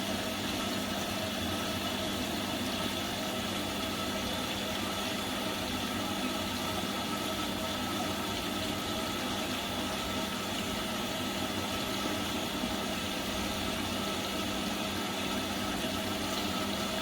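Washing machine in its final spin cycle: a steady whirring with a constant hum and whine that neither speeds up nor slows down.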